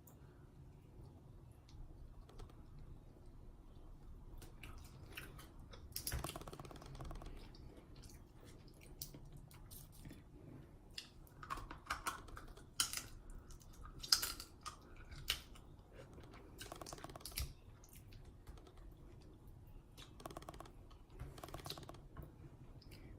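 Close-up mukbang eating sounds: irregular clicking and crackling from handling and chewing seafood, with wet smacking. The clicks come in scattered clusters, louder a few times through the stretch.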